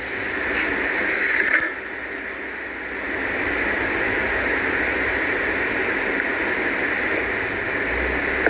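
Steady hiss of background noise, with a brief louder rustle about a second in and a few faint clicks as small plastic toy figures are picked up and moved on a table.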